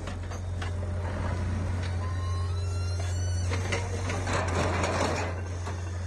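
Heavy machinery running with a steady low hum, with scattered metallic knocks. A louder rush of noise comes about four and a half seconds in.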